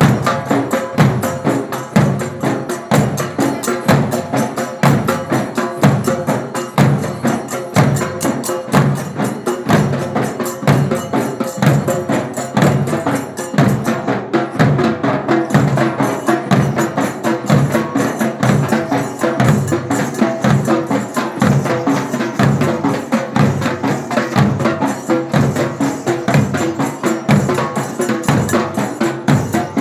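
A group of dollu, large double-headed Karnataka barrel drums, beaten with sticks together in a fast, steady rhythm.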